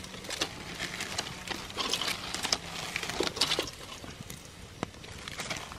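Dubia cockroaches roasting in a metal pot over a wood fire, crackling and popping irregularly, the pops thickest a couple of seconds in.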